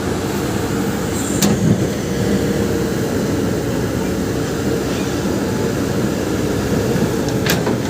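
Caterpillar 321B excavator's diesel engine running steadily under work, with two sharp knocks, one about a second and a half in and one near the end.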